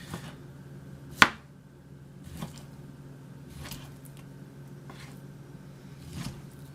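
Knife slicing raw chicken breast into strips, tapping the cutting board with each stroke: one sharp loud knock about a second in, then softer strokes roughly every second and a quarter, over a steady low hum.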